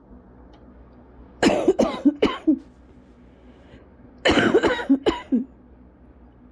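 A person coughing in two short fits of about four coughs each, a couple of seconds apart. It is the lingering, recurring cough of cough-variant asthma that stays for weeks after bronchitis.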